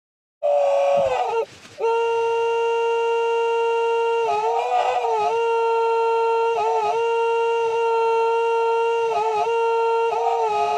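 A man's crying voice, digitally slowed and stretched by glitchy lag into a steady, horn-like held tone. It cuts out briefly at the start, settles onto one pitch after about two seconds, and wobbles briefly a few times.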